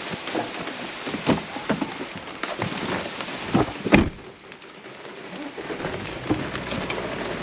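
Heavy rain falling, with many separate drop hits close by and a louder thump about four seconds in.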